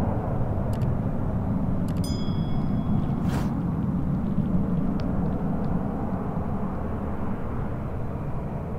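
Twin Pratt & Whitney PW535A turbofans of a Cessna 560 Citation Encore at climb power, heard as a steady distant jet rumble slowly fading as the aircraft climbs away. A few brief clicks and a short high ringing tone come about two seconds in.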